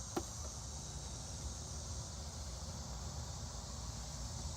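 Steady high-pitched insect chirring, like crickets, over a low rumble, with one sharp click just after the start.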